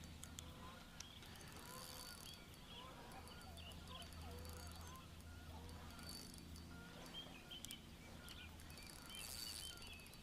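Faint birdsong from Australian magpies: many short gliding, warbling notes, heard over a low steady background hum.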